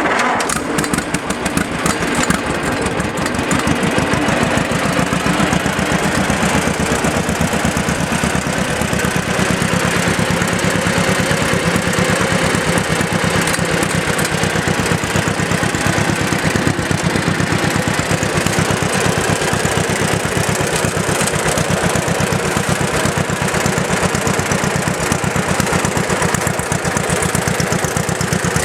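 1946 John Deere LI tractor's two-cylinder engine starting and then running steadily at idle, with a fast, even rhythm of firing pulses.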